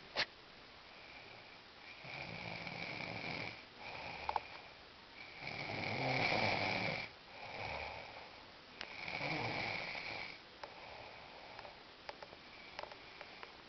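A sleeping young man snoring loudly, with a rough rasping snore every couple of seconds, each lasting about a second, and a thin whistle running through them. The loudest snores come around six and nine seconds in. A single sharp click sounds right at the start.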